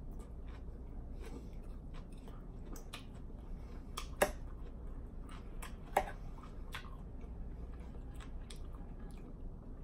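Close-miked chewing of a mouthful of salad, with many small wet mouth clicks. Two sharper clinks, about four and six seconds in, come from a metal fork against the salad bowl.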